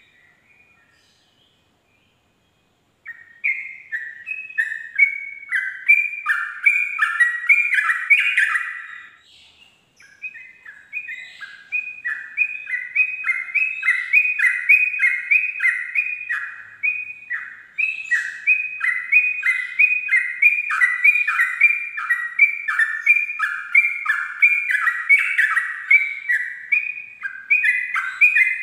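Yellow-vented bulbul (trucukan) singing its fast, unbroken 'ropel' song, a long run of quick chirpy notes. It starts about three seconds in, pauses briefly about ten seconds in, then runs on.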